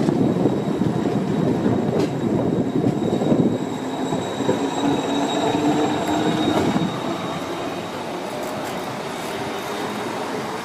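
Siemens NF8 Combino tram running on its rails, a steady rolling rumble with a faint high whine in the middle that eases off a little after about seven seconds.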